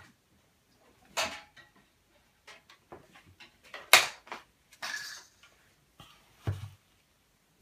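Scattered knocks, clicks and clatter of small hard objects, with a sharp crack about four seconds in and a dull thump near the end.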